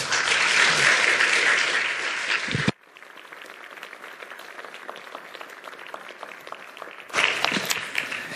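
Congregation applauding. The sound drops suddenly to quieter, thinner clapping about three seconds in, then swells again near the end.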